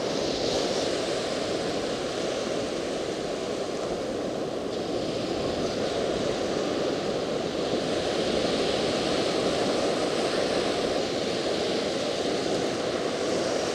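Ocean surf breaking and washing up the beach: a steady rush of water that swells and eases slowly.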